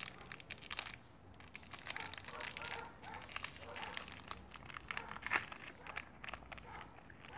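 Plastic wrapper of a cereal snack bar crinkling and crackling as it is torn open by hand, in a run of short crackles, the sharpest a little past five seconds in.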